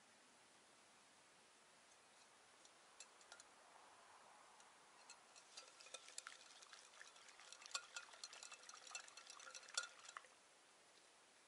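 Snow being packed in the hands: a quick run of faint crunches and small squeaks that grows busier and stops suddenly about ten seconds in.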